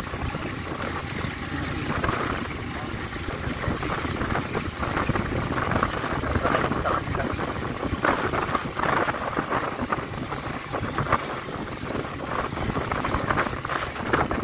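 Small motorcycle riding along a gravel dirt road: engine running steadily, with wind buffeting the microphone.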